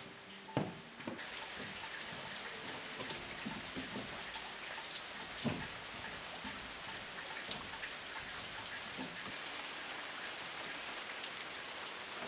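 Steady rain falling and pattering on surfaces, an even hiss full of fine drop ticks. It starts about a second in, after a couple of short knocks.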